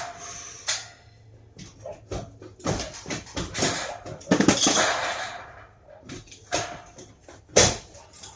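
Irregular knocks and clattering, with a longer rushing, scraping noise about four to five seconds in and one sharp bang near the end.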